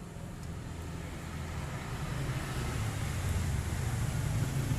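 An engine running with a steady low hum, growing gradually louder.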